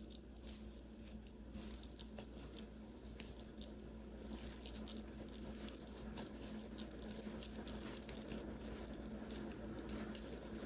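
Faint, scattered soft clicks and rustling of a metal crochet hook working cotton yarn through crocheted fabric, single-crocheting two strips together.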